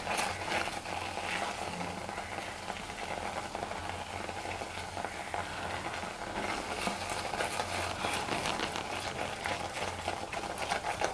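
Silicone spatula stirring and scraping a thick, cooking milk-powder burfi mixture around a nonstick pan, with a soft sizzle and many small scrapes and ticks. The mixture is thick enough that it is starting to leave the base of the pan.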